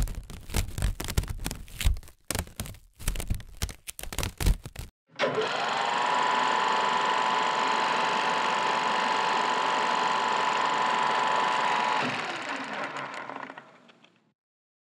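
A clockwork 16mm film camera mechanism: first irregular clicking and clatter, then the camera running with a steady whir that rises to speed as it starts. The whir cuts off suddenly about twelve seconds in, and the remaining noise fades out.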